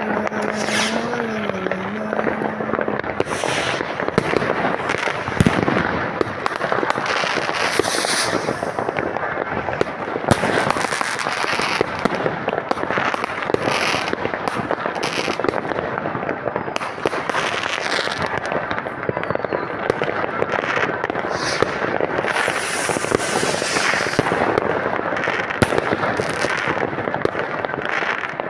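Consumer fireworks and firecrackers going off continuously in a dense crackle of many overlapping bangs, with no break.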